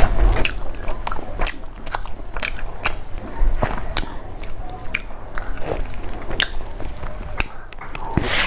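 Close-miked eating sounds: wet chewing and lip smacks, heard as a string of sharp clicks one or two a second, as rice and fish curry are eaten by hand.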